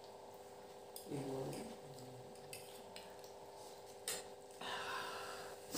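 Forks scraping and clinking on plates of noodles, over a steady background hum. About a second in there is a short hummed vocal sound, and just past the middle a click followed by a brief hiss.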